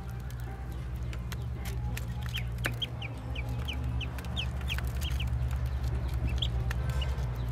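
Ducklings peeping in short high chirps, a few a second, with light clicks of bills pecking at feed in a dish, over a low steady hum.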